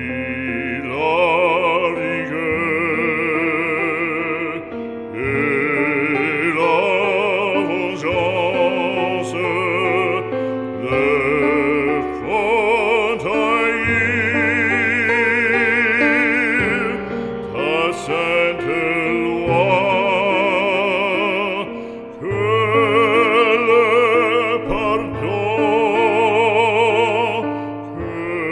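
Operatic singing with strong vibrato over a steady accompaniment, in sustained phrases with brief breaks.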